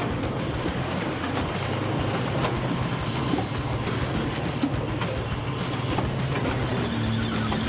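Engine-driven wood splitter running steadily, with scattered knocks and cracks from the logs and splitter. A steadier, higher hum comes in near the end.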